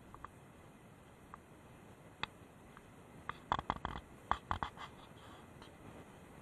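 Scratching and sharp clicking from an action camera's case being handled, with a quick, irregular burst of clicks a little past the middle, over a faint steady hiss.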